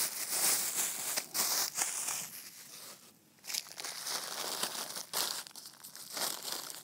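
Crinkling and rustling of the wrapping around a raw pork neck as it is handled and opened: a run of irregular crackly rustles, with a short pause about three seconds in.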